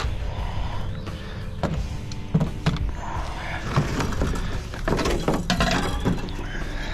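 Metal parts of a PTAC heater/air-conditioner clanking and scraping as it is pulled apart by hand: a run of irregular knocks and rattles.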